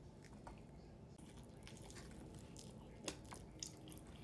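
Faint chewing and mouth sounds while eating chicken wings, with a few small clicks, the loudest about three seconds in.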